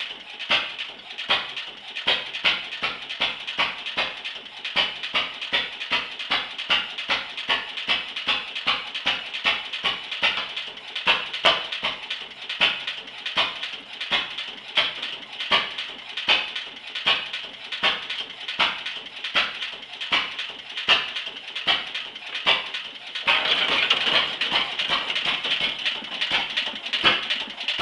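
The single-cylinder, throttle-governed engine of a half-scale model 1905 Otto tractor running steadily, each firing a sharp pop, about two to three a second. About 23 seconds in, a steady rushing noise joins the pops.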